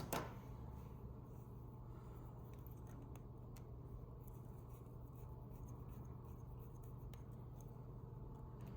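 Faint small clicks and rubbing from hands handling a plastic 7-pin trailer connector and its pins, over a steady low hum. A sharper click comes right at the start, and a few fainter ticks are scattered through.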